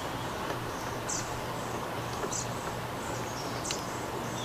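Hand-cranked chainsaw-chain rivet spinner turning slowly as it peens a repair-link rivet, with a faint high squeak about once every second and a bit, one for each turn of the crank.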